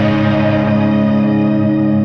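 Background music: a held chord ringing on steadily while its high notes fade away.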